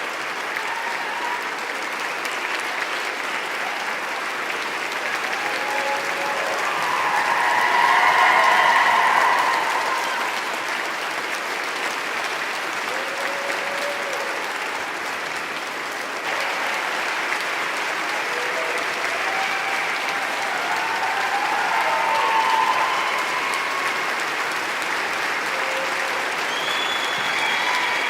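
A crowd applauding, continuous dense clapping that swells louder about eight seconds in and again, more briefly, a little past twenty seconds.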